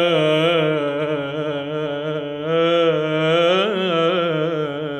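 Solo male voice singing a long, ornamented melisma in Arabic devotional chant, the pitch wavering and turning without words. The note dips in loudness about two seconds in, then swells again.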